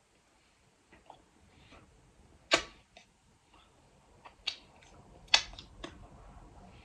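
Close-miked eating sounds: a handful of sharp mouth clicks and smacks, the loudest about two and a half and five and a half seconds in.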